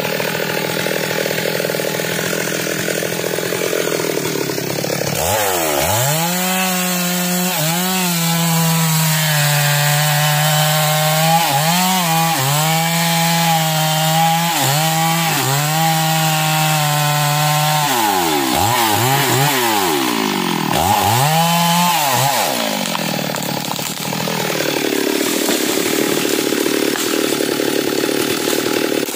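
Stihl two-stroke chainsaw cutting into a standing tree trunk to fell it. The engine holds a steady note under load, and its pitch drops sharply and picks up again several times, most often near the end of the cut.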